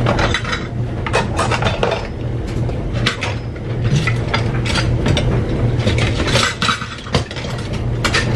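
Metal kitchen utensils clinking and clattering as they are handled and sorted, with many short knocks and rattles throughout, over a steady low hum.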